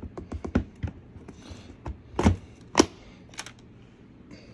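Hard plastic clicking and knocking as a plastic toy-track bucket's lid is worked loose. There is a quick run of small clicks, then two louder knocks about two and three seconds in, and a few more clicks after.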